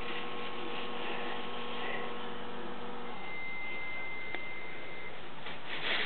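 Steady background hiss with faint electrical hum tones that fade out about halfway through. A faint high steady tone comes in for about two seconds, and there is a single light tick about four seconds in.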